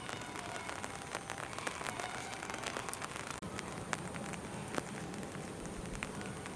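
Steady rain falling, with many scattered sharp clicks of individual drops striking.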